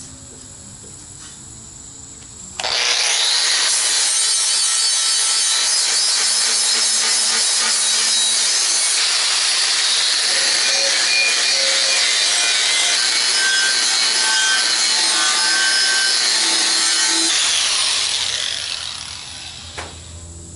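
Angle grinder with a thin cut-off disc cutting the tongue slots into the steel shell of a propane-tank tongue drum. It starts abruptly about two and a half seconds in, runs steadily at full speed, then winds down near the end.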